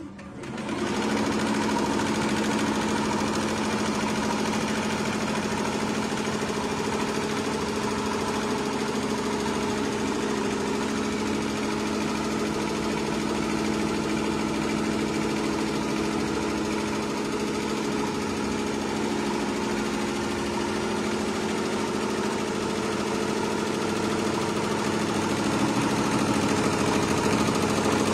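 Tajima SAI embroidery machine starting up and running up to speed within about the first second, then stitching steadily: an even mechanical running sound with a steady hum, a little louder near the end.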